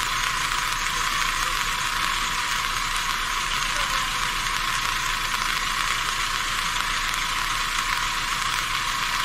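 Heavy rain falling, a steady even hiss with the low end cut away.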